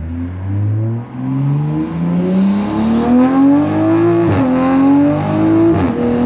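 Toyota MK5 Supra with an HKS titanium exhaust and catless downpipe accelerating hard at full throttle. Engine pitch climbs through the gears, with two upshifts about four and six seconds in, where the pitch drops sharply and then climbs again.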